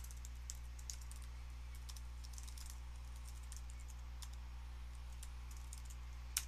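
Computer keyboard typing: light, irregular keystrokes, with one sharper key press near the end, over a low steady hum.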